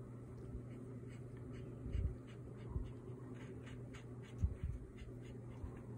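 Ink pen scratching on drawing paper in a run of short strokes while shading a comic drawing, with a few soft low bumps in between.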